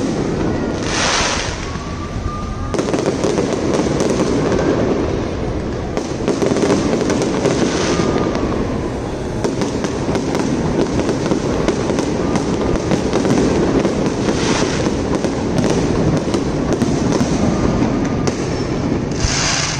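Aerial fireworks bursting and crackling continuously, with a few louder bangs spaced several seconds apart.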